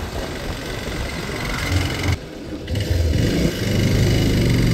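Motorcycle engine running under way, with wind and road noise. The engine eases off briefly about two seconds in, then pulls harder and gets louder near the end.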